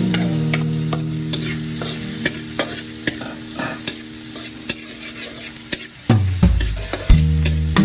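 Food frying and sizzling in a pan while being stirred, with a utensil clicking and scraping against the pan. Background music with steady held notes, and loud low notes come in about six seconds in.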